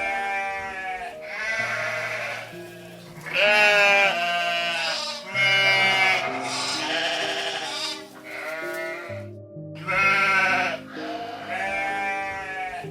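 Repeated bleating calls, about ten in a row, each lasting about a second with a wavering pitch, over soft background music of held low notes.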